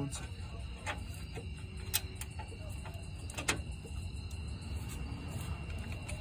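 A hand tool clicking against a differential mount bolt: a few scattered sharp clicks, the loudest about three and a half seconds in, over a steady low rumble.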